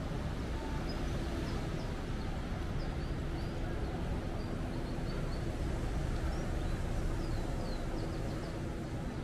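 Outdoor street ambience: a steady low rumble of traffic with small birds chirping again and again over it, more busily in the second half.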